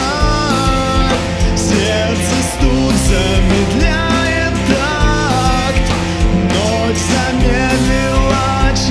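Rock music with electric guitars and drums, a gliding lead melody line over a steady beat, with no lyrics.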